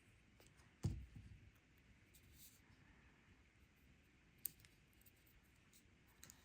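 Near silence with a few small sounds of handling: a sharp knock about a second in, a fainter click a few seconds later and some soft rustling, as tweezers and small paper letters are worked on a table during gluing.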